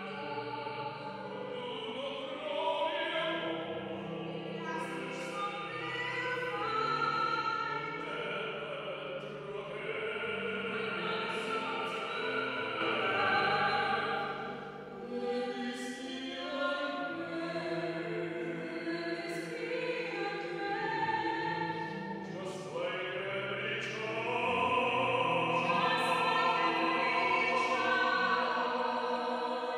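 A soprano and a bass-baritone singing a sacred song together in classical operatic style, holding notes with vibrato. The voices are loudest near the end.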